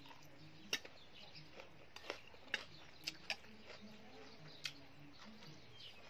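A person chewing a mouthful of food: scattered sharp crunches and mouth clicks, about half a dozen spread over a few seconds.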